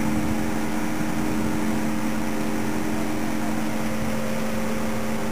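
Steady mechanical drone of an idling engine, a constant hum that does not change.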